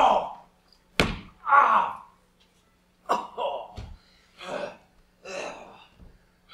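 A sharp thud about a second in, then a man's short gasps and groans of pain, with a softer low knock near four seconds.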